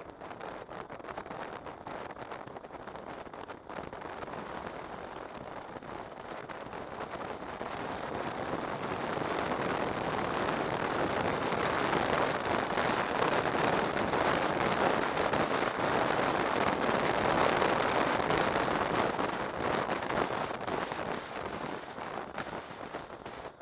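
Wind rushing over the microphone of a camera on a moving motorcycle, mixed with riding noise: a steady rush that grows louder from about eight seconds in and eases off near the end.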